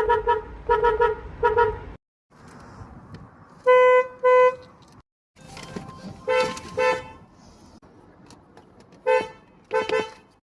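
Car horn tooting in short blasts, in three brief clips cut together: a run of four quick toots, then two steady single-pitched toots, then two pairs of toots.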